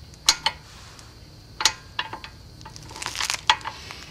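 A few sharp metallic clicks and knocks as drum-type parking brake shoes on a Mercedes-Benz W108 rear hub are shifted by hand against the backing plate: one near the start, one about a second and a half in, and a quick cluster around three seconds.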